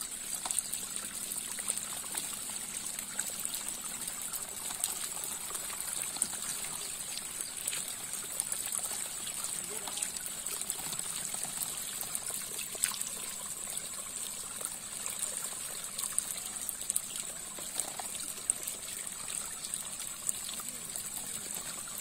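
Water trickling steadily through a bamboo-slat fish trap, with many small irregular ticks and splashes from a heap of small wet fish being handled, under a steady high hiss.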